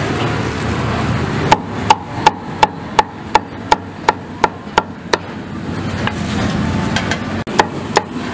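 Cleaver chopping pork belly on a wooden chopping block: a quick, even run of about a dozen sharp knocks, around three a second, starting about a second and a half in, then a few more near the end.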